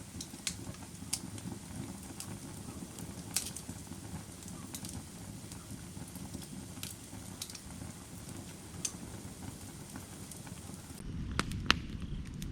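Firewood burning: a steady low rumble of flames with scattered sharp crackles and pops from the wood. Near the end the sound changes abruptly and the low rumble gets louder.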